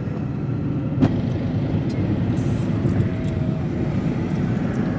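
Car driving along a road, heard from inside the cabin: a steady low rumble of engine and tyre noise, with a single sharp click about a second in.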